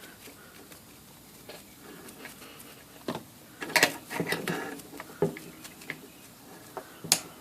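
Scattered clicks and knocks of small metal parts and tools being handled on a workbench, busiest around the middle, with one sharp click near the end.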